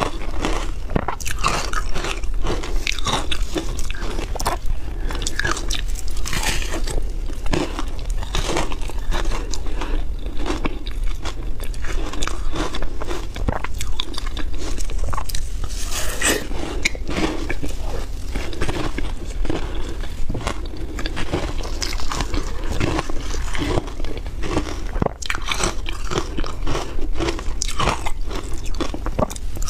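A person biting and chewing hard frozen ice, with sharp cracks as it breaks and a dense, irregular crunching throughout.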